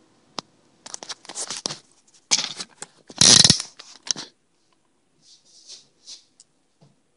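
Handling noise of a phone being picked up and set in place: a click, then irregular rustling and scraping, loudest about three seconds in, followed by a few softer brushes and a light knock near the end.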